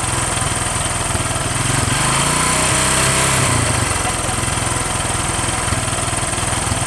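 Small ATV engine running in neutral, picking up slightly about two seconds in, then settling back to idle.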